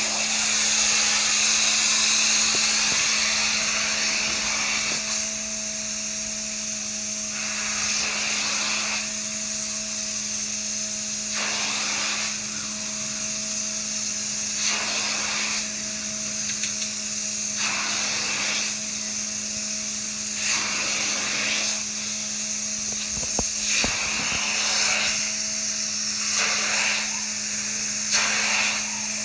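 Upholstery cleaning machine running with a steady hum and hiss, its hand tool drawn over sofa fabric in repeated strokes, each stroke a rush of suction noise. The strokes come about every two seconds, closer together near the end.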